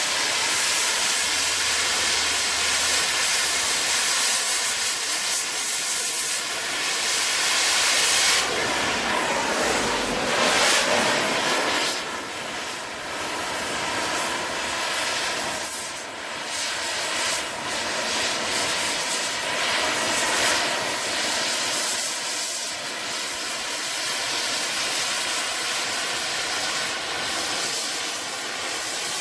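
Cutting torch hissing steadily as it cuts through the steel back panel of a safe, with small surges and dips in level.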